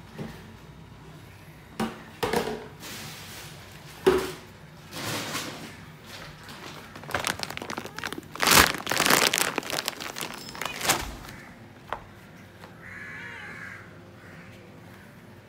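Plastic Whiskas dry cat-food bag crinkling and rustling as it is handled, in several bursts that are loudest just past the middle, with a few sharp knocks.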